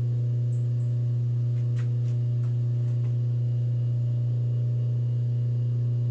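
Steady low electric hum of the Bridgeport milling machine's motor running, with a few light clicks about two seconds in.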